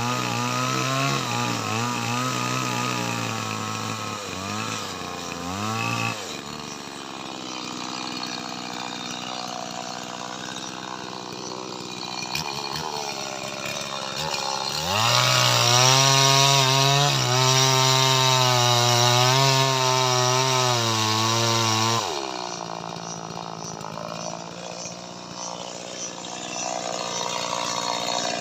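Stihl MS 180 two-stroke chainsaw cutting lamtoro (leucaena) wood. The engine labours under load with a wavering pitch for about six seconds, then runs lower and quieter. It cuts again, loudest and at a high steady pitch, from about fifteen to twenty-two seconds in, then eases back.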